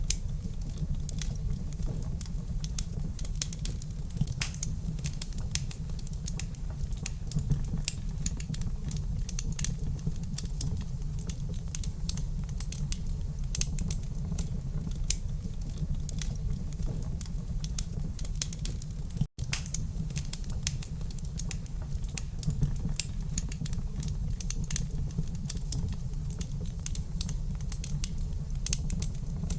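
Wood fire crackling in a fireplace: many small, irregular pops and snaps over a steady low rumble. The sound cuts out for an instant about two-thirds of the way through.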